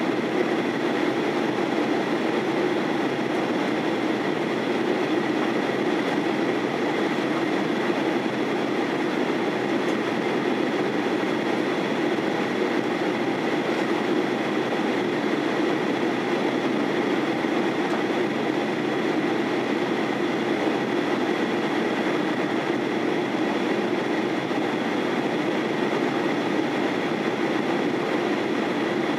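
Steady cabin noise inside a Boeing 737-800 in flight: the even hum of its CFM56-7B turbofan engines and rushing airflow, with a faint steady high whine on top.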